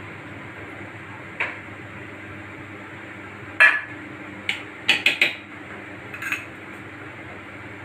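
Stainless-steel mixer-grinder jar and lid clinking and knocking as they are handled and the lid is set back on. The loudest knock comes about three and a half seconds in, and a quick run of three clinks follows about five seconds in, over a faint steady hum.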